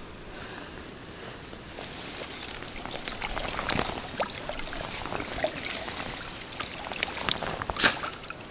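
Water splashing and dripping as a mesh keepnet is handled and laid back into the lake shallows: a run of small splashes and drips from about two seconds in, with one louder splash near the end.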